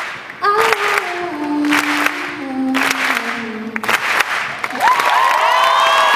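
A grand piano and a woman's singing voice finish a quiet closing phrase of stepped notes over audience applause. About five seconds in, the crowd breaks into cheering, with several long, high held shouts that rise and then hold.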